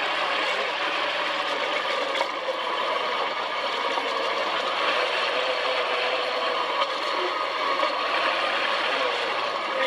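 Dune buggy's engine running steadily under way across sand, with mechanical clatter from the vehicle.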